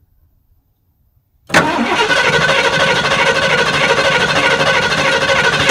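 Starter motor cranking the 1979 Ford E350's big-block 460 V8 for about four seconds without the engine firing. It kicks in suddenly about a second and a half in and cuts off at the end.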